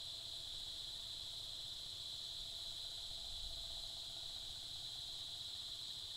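A steady, high-pitched chorus of insects, such as crickets or cicadas, running evenly without a break.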